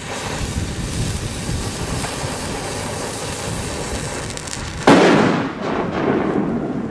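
A large firecracker going off about five seconds in: one sharp bang that rolls away in an echo, after several seconds of steady hiss.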